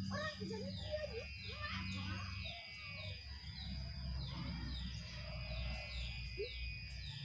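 Birds chirping outdoors: a short falling chirp repeated about twice a second, with chickens clucking in the first couple of seconds.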